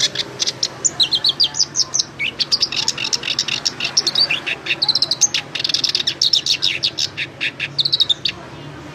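A songbird singing a long, rapid, varied song of high chirps, trills and quick rising and falling notes, which stops shortly before the end.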